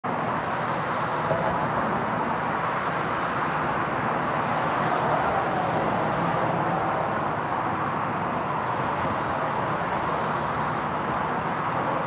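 Steady hiss of road traffic, swelling slightly as a car passes on the street about five seconds in.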